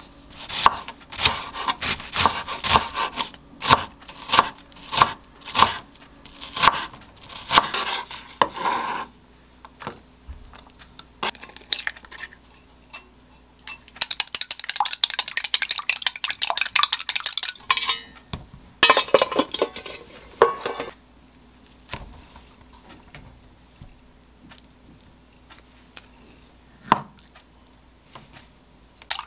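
Kitchen prep sounds: a run of sharp clinks and knocks of dishes and utensils, then an egg beaten with chopsticks in a glass bowl, a fast rattle of clicks. Near the end, light taps of a chef's knife slicing an avocado on a wooden cutting board.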